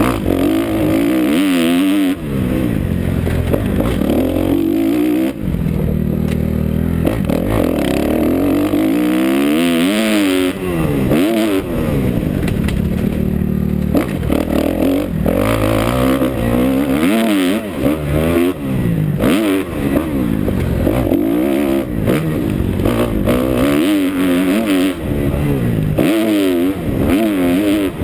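2011 Kawasaki KX250F's four-stroke single-cylinder engine, ridden hard on a dirt motocross track and heard from the rider's helmet. Its pitch rises and falls over and over as the throttle is opened and shut and the gears change.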